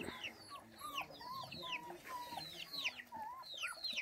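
Rapid high-pitched animal peeping and whimpering calls, several a second, most of them falling quickly in pitch, with lower short whine-like notes among them.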